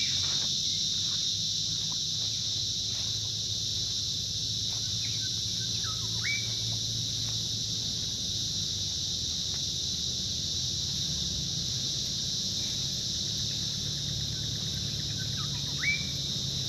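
Outdoor bush ambience: a steady high-pitched insect chorus, with a bird giving a short upward-sweeping call three times, once near the start, once about six seconds in and once near the end. A low steady hum runs underneath.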